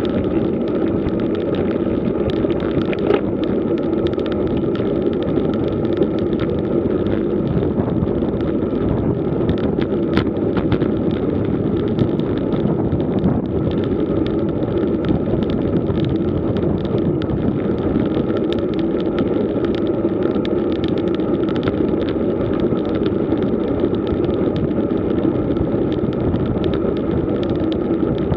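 Road bike rolling on rough asphalt, heard from a bike-mounted camera: steady tyre and road hum mixed with wind rush, with small clicks and knocks from bumps in the road surface.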